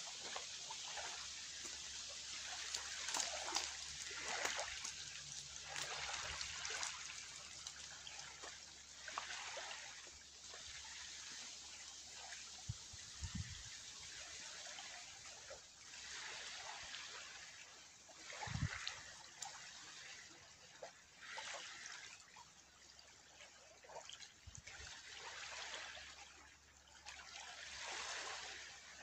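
Faint water lapping and trickling at the river's edge, swelling and fading every few seconds, with a couple of short low thumps partway through.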